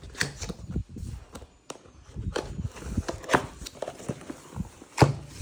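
Cardboard keyboard box being opened and handled: irregular rustles and knocks, with a sharp knock about five seconds in.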